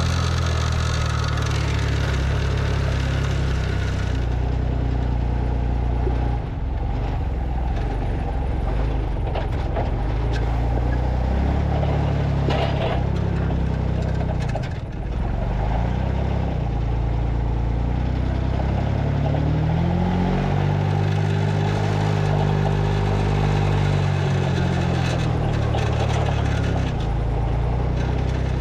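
Delivery truck's engine running steadily as the truck drives. About two-thirds of the way through, the engine pitch rises and then falls again, as the revs climb and drop.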